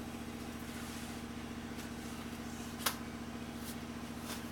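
Steady low machine hum with a fast, even pulsing underneath, and one sharp click about three seconds in.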